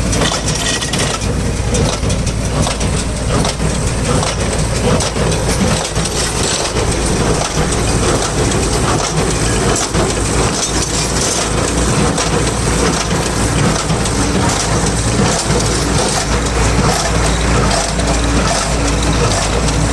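A tractor engine runs steadily, driving a New Holland BC 5060 small square baler at work on straw. Dense, irregular crackling and clicking from the machine sits over the engine throughout.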